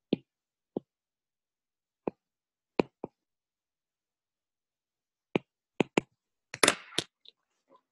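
Stylus tips tapping on a tablet's glass screen while handwriting: a dozen or so short, sharp clicks at irregular intervals, bunched more closely near the end.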